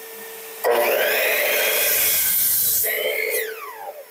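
Miter saw cutting through a pine 2x4: a loud cut starts suddenly about a second in and lasts about two seconds. Near the end the blade winds down with a falling whine. A shop vac drawing the dust through a cyclone dust separator hums steadily underneath.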